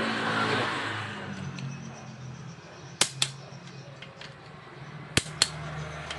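Two pairs of sharp metallic clicks, each pair about a quarter second apart, about three and five seconds in, from hand tools working on engine parts during assembly. A rushing vehicle noise fades away over the first second.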